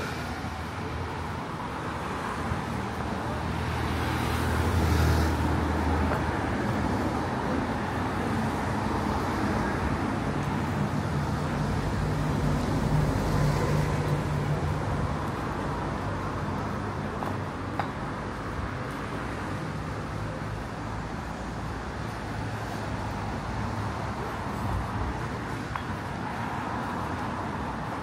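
Steady city street traffic, with the low engine hum of passing vehicles swelling about four seconds in and again around twelve to fourteen seconds.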